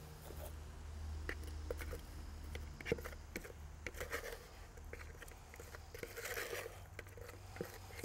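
Cement-based patching compound being hand-stirred with water in a small plastic pail: faint, irregular gritty scrapes and clicks of the mixing tool against the pail, over a low steady hum.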